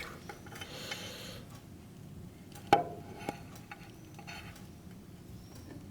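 Metal parts of a portable hand planer's blade assembly being handled while the blade is set: a short scrape, then a sharp metal click nearly three seconds in and a softer click just after.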